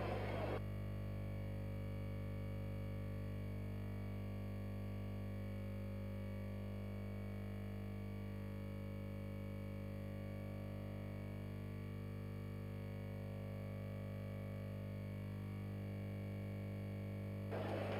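Soft, steady synthesizer pad held as a sustained drone: low tones with fainter upper notes that shift slowly.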